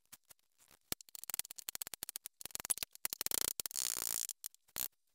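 An onion being peeled and then cut with a Chinese chef's knife on a cutting board. A few scattered clicks at first give way, from about a second in, to a quick run of knife strokes against the board.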